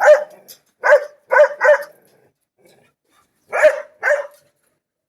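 A dog barking in short, sharp barks: four in quick succession, a pause of about two seconds, then two more.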